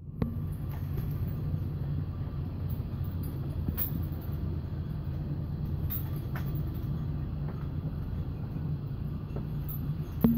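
A steady low rumble with a few sharp clicks scattered through it.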